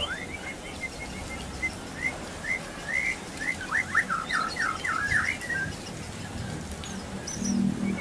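White-rumped shama singing: a string of short whistled notes and chirps, with a quick run of sharp notes in the middle. A low hum comes in near the end.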